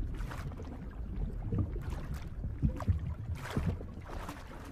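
Waves and wind on a beach: a steady low rumble with several brief rushes of water.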